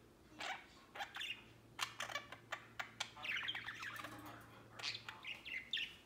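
Pet budgerigars chirping and chattering: a string of short, sharp chirps, with a busier run of chatter around the middle.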